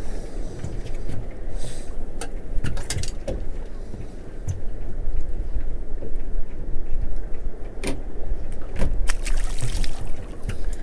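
Steady low rush of wind and water around a small open fishing boat drifting at sea, with scattered sharp clicks and knocks.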